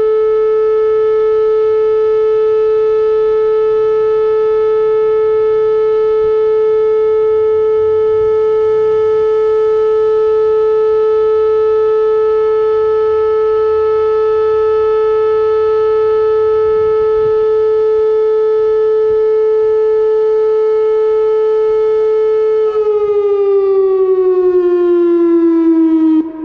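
Whelen outdoor tornado warning siren sounding its weekly test: one loud, steady tone, then winding down in the last few seconds, its pitch falling before it cuts off.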